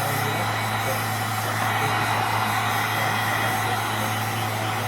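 Heat gun running steadily: a constant rush of blown air with a steady low hum under it.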